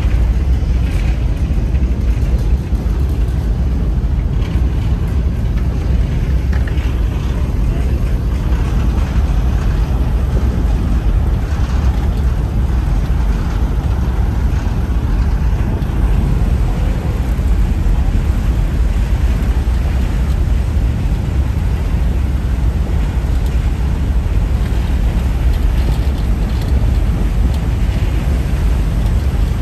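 Ferry under way, heard from its open stern deck: a steady low rumble of engine and churning wake, mixed with wind on the microphone.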